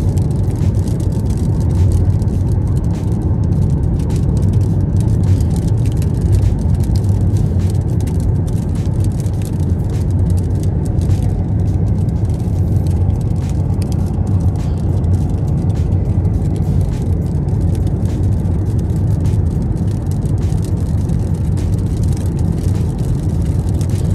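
Hail pelting a moving car, heard from inside the cabin: a loud, dense, irregular patter of small hits on the roof and glass over the steady rumble of the car's road noise.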